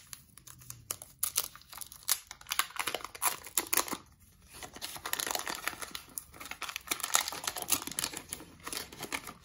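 Paper wrapper of a 1990 Fleer baseball card pack crinkling and tearing as it is opened by hand, in two spells of rustling with a short lull about four seconds in.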